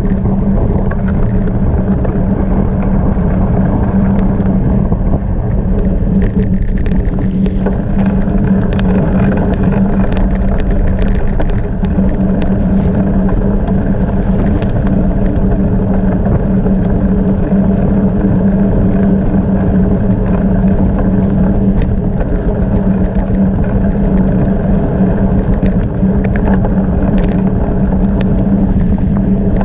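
Wind rushing over the microphone and tyre rumble from a gravel bike ridden at speed, with a constant low hum throughout and scattered small clicks and rattles.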